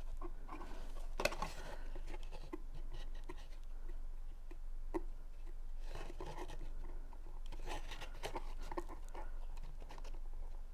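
Thick cardstock being handled and worked through narrow slits: irregular paper rustling and scraping with scattered small ticks, a sharper one about a second in and another near the middle.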